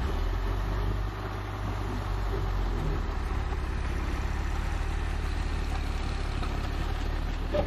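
Army cargo truck's engine running with a steady low rumble as the truck rolls slowly past.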